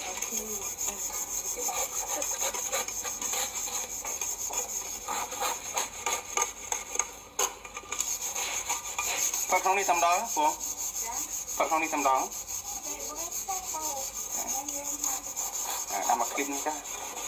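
Irregular scraping and rubbing as a baby monkey claws and scrapes at the husk and flesh of split young coconut halves, with two short wavering cries about ten and twelve seconds in.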